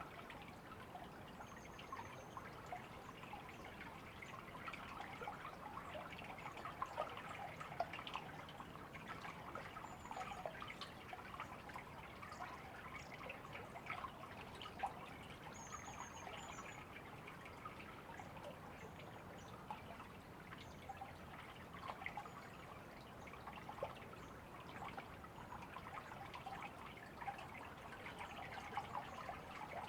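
River water trickling and babbling, a steady wash dotted with many small drips and plinks.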